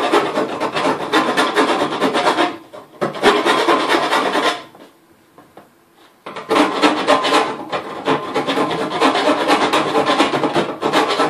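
A tiny hand file rasping back and forth in a drilled hole in a metal panel, taking off the burr. The rapid strokes break off briefly after about two and a half seconds, then stop for about a second and a half near the middle before the filing resumes.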